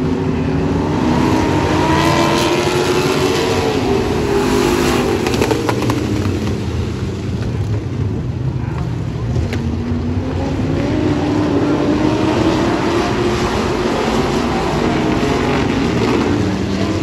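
A pack of vintage dirt-track stock cars racing together, their engines running hard. The pitch climbs and falls as the cars drive the straights and lift for the turns.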